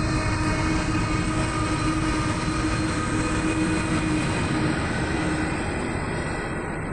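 A passenger train passing close by at speed: two NR class diesel-electric locomotives running past, then the car-carrier wagon and stainless steel carriages rumbling over the rails. A steady hum from the locomotives fades about five seconds in, leaving the wheel-and-rail rumble, which slowly eases.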